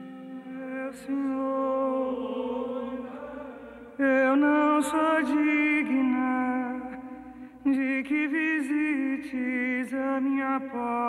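Music: a voice singing slow, chant-like phrases of long held notes with a wavering vibrato. New phrases begin about one, four and eight seconds in.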